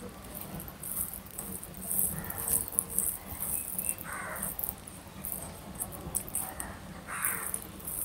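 Eating by hand: fingers mixing and squeezing soft khichuri on a steel plate, with chewing and mouth sounds.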